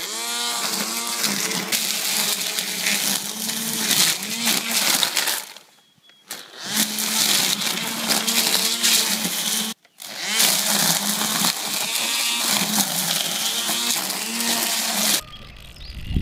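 Cordless 40-volt battery string trimmer running and cutting grass and weeds: a steady electric motor whine with the line's hiss, rising in pitch as it spins up when the trigger is pulled. It stops for about a second around the middle and spins up again, then cuts off shortly before the end.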